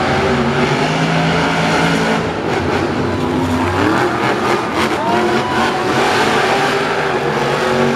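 Monster trucks' supercharged V8 engines running hard and revving during a race, their pitch rising and falling throughout.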